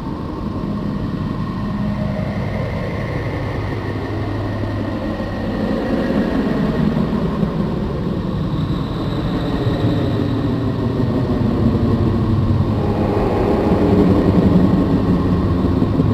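A 'planet sound', spacecraft data turned into audio: a continuous low rumbling drone with wavering tones that glide slowly up and down, swelling a little toward the end.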